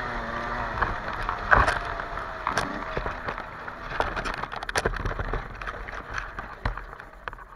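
Yamaha YZ125 two-stroke dirt bike off the throttle, its engine note sinking and fading in the first second or so as the bike rolls on over a rough dirt trail. Rattles from the bike and several sharp knocks over the bumps follow, and everything gets quieter near the end as the bike slows.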